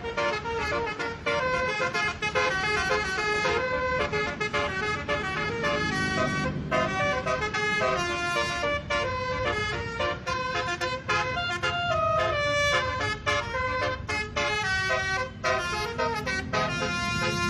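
Basuri telolet multi-tone horn playing a fast tune, its notes stepping up and down several times a second over a low rumble.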